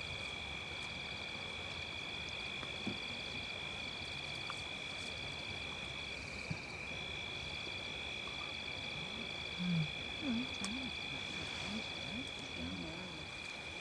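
Steady night chorus of calling insects: a continuous high trill with a short rhythmic chirp repeating about twice a second. A few faint low sliding murmurs come near the end.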